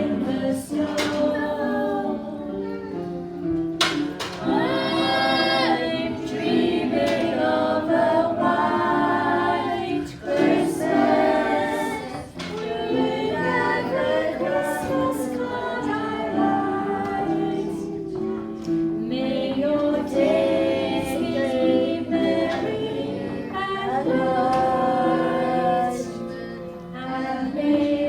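Music: a group of voices, choir-like, singing a melody over sustained accompanying notes.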